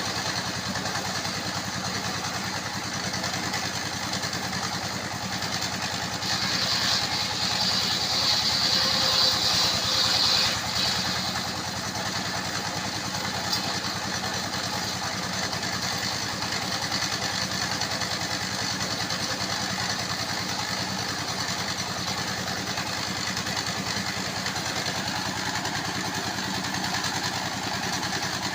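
Engine-driven circular sawmill running steadily, with a louder, higher-pitched stretch starting about six seconds in and lasting some five seconds as the disc blade cuts through a log.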